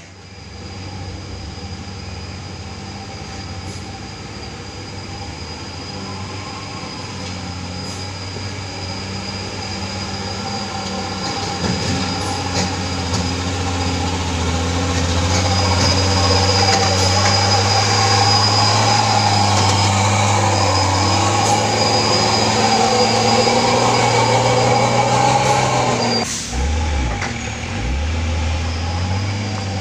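Diesel engine of a Hino 500 tandem-axle dump truck running hard as the truck works slowly closer and past, growing louder, with a thin steady high whine above the engine note. About 26 seconds in the sound changes abruptly to a quieter engine drone from another truck.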